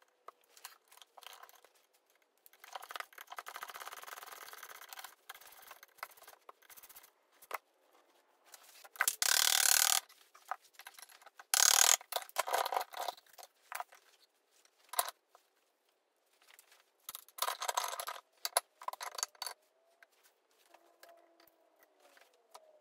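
Metal parts of a Type 9 gearbox clinking, rattling and scraping as it is taken apart by hand, with two loud knocks, one about nine seconds in and one about twelve seconds in, as parts are driven out with a mallet.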